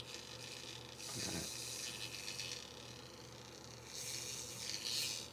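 Small electric motor and gears of a Tyco HO-scale locomotive running on test, a steady hissing whirr over a low electrical hum.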